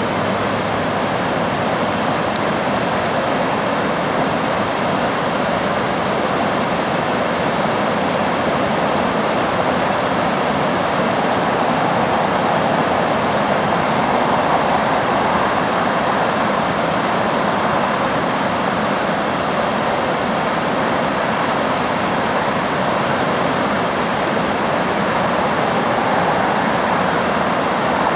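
Water rushing steadily through a dam's floodgates, an even, unbroken rush.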